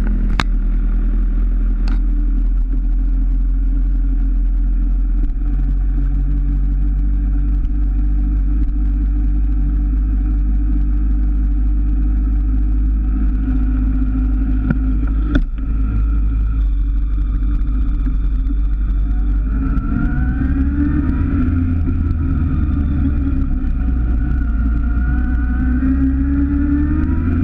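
Motorcycle engine running at low revs while rolling slowly, then accelerating from about twenty seconds in, the revs climbing several times in a row. A few sharp clicks near the start and in the middle.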